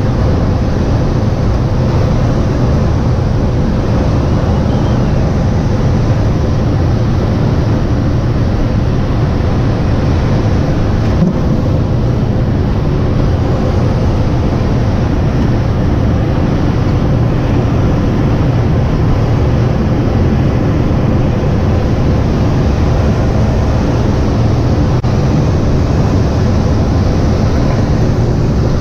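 Steady rush of air around an unpowered Schweizer SGS 2-33 glider's cockpit in gliding flight, heavy and low with wind buffeting the microphone, and a faint steady whistle under it.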